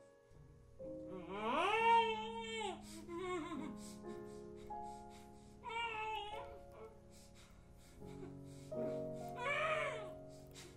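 Film score: sustained keyboard notes held under a high, wordless voice-like line that swells and falls away three times.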